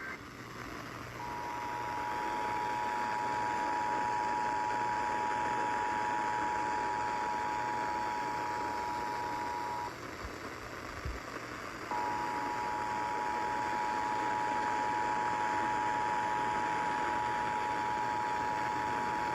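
Emergency Alert System attention signal: the steady two-tone alarm (853 and 960 Hz together) sounding over radio static hiss. It runs about nine seconds, breaks off for about two seconds, then starts again.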